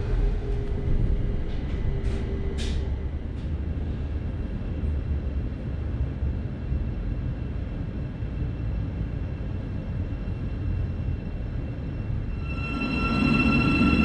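Steady low rumble of an electric passenger train heard from inside the carriage as it runs into the station, with a few brief squeaks and clicks about two to three seconds in. Near the end the sound changes to the steady electrical whine, with several held tones, of a Thameslink Class 700 electric train standing at the platform.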